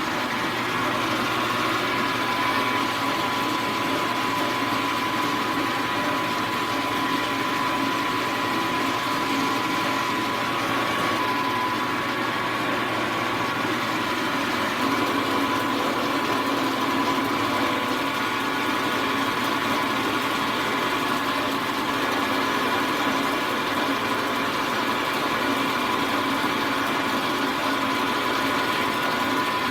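Milling machine running steadily with a high-speed steel four-flute end mill cutting a pass across the part, with a steady whine.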